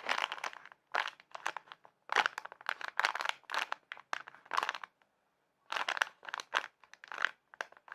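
Crinkly wrapping being handled, with quick irregular crackles and a pause of about a second midway.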